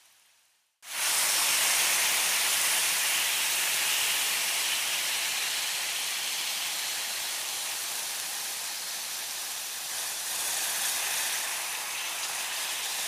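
Meat sizzling on a hot grill: a steady hiss that starts abruptly about a second in after a moment of silence.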